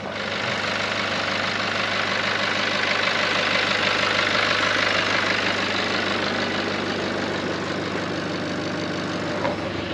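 Nissan Patrol ute's engine idling steadily, growing a little louder in the middle and easing off again toward the end.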